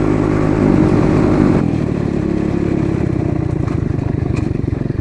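125cc dirt bike engine running under steady throttle. About a second and a half in the note drops to a quieter, lower, lumpy putter as the throttle is closed and the bike slows.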